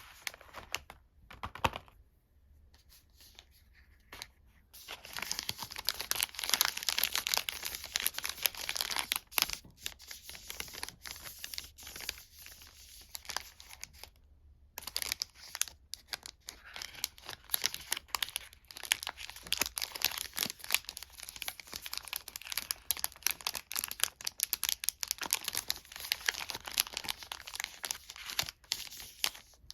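Sweet wrappers being torn open and crinkled: dense crackling and tearing that starts about five seconds in, breaks off briefly in the middle, then goes on.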